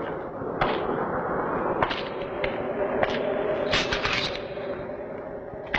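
Film-soundtrack gunfire: scattered single shots, then a quick run of rapid shots about four seconds in, over a steady hum.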